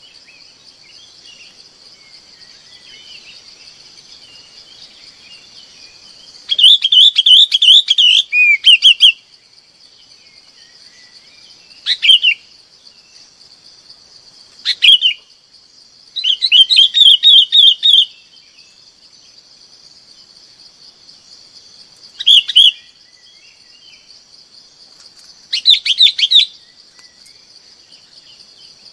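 Bulbul flock calls: loud bursts of quick chattering notes alternating with short single calls, coming every few seconds. A steady high hiss runs underneath.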